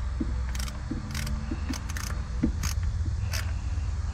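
Scattered light clicks and clinks of hand tools and parts being handled in a truck's engine bay, roughly every half second, over a steady low rumble.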